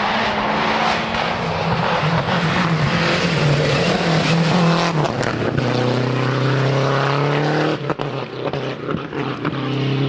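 Lancia Delta rally car at full throttle, its engine revving up, changing gear about five seconds in and pulling hard again, then lifting off sharply near eight seconds.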